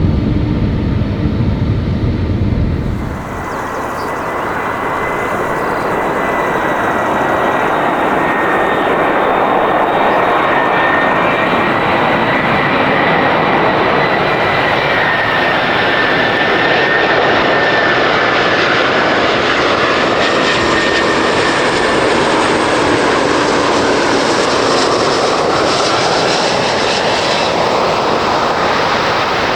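Four-engined Airbus A340-300 airliner on landing approach, its jet engines running with a steady whine over a broad rush that swells slightly as it passes close. For the first three seconds or so there is a deeper rumble from a different jet airliner departing, which cuts off abruptly.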